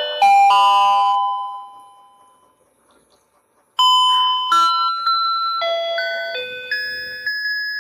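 A chime chord rings and fades away, then after a short pause a beeping electronic tune starts, single notes stepping up and down, like the built-in music of a battery-powered toy fishing game.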